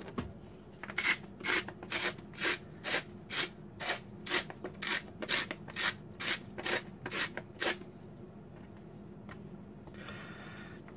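Hand-twisted salt grinder grinding coarse salt: a run of short rasping strokes, about two to three a second, stopping about eight seconds in.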